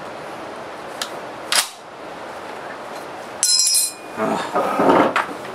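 Metallic clicks and clatter of an M1 Garand's action being handled, with a brief bright metallic ringing a little past the middle followed by a louder rattling clatter.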